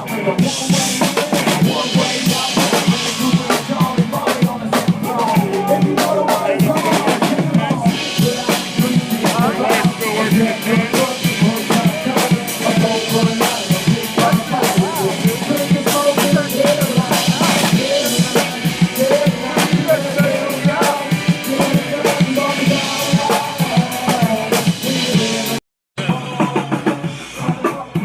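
Live band music with a steady drum-kit beat of bass drum and snare under the melody, recorded loud. The sound cuts out completely for a split second near the end.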